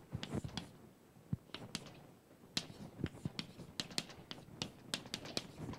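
Chalk tapping and scraping on a blackboard as an equation is written: an irregular string of sharp clicks, some a fraction of a second apart.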